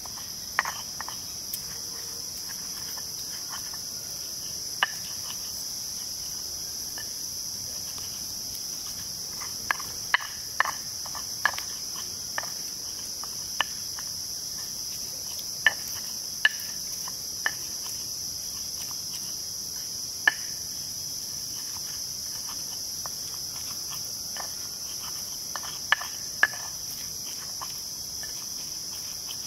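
Stone pestle knocking and grinding against a stone mortar as green chili paste is crushed, in sharp irregular taps spaced a second or more apart. Behind it, insects keep up a steady high-pitched drone.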